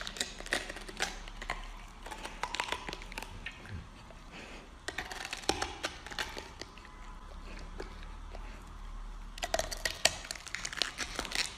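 Golden retriever biting and chewing a whole raw red cabbage, making crunching sounds. The crunches come in three bursts with short pauses between.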